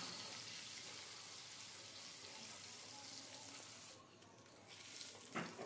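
Rohu fish pieces sizzling as they fry in hot oil in a wok: a faint, steady hiss that drops away briefly about four seconds in.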